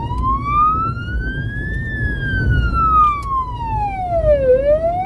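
The transport car's own emergency siren on a slow wail, heard from inside the cabin. It rises in pitch to a peak about two seconds in, falls for about two and a half seconds, and starts rising again near the end, over a steady low engine and road rumble.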